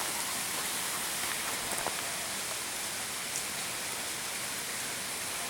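Steady hiss of rain falling on rainforest foliage, with a few faint drip-like ticks.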